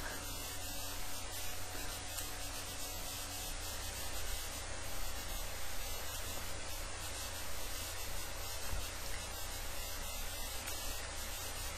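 Steady hiss with a low hum underneath: the background noise of a webcam microphone, with no one speaking.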